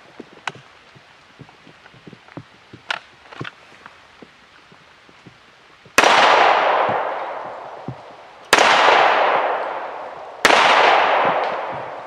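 Three handgun shots fired in a slow, aimed string: the first about halfway in, the next two about two and a half and two seconds later, each followed by a long echo trailing off.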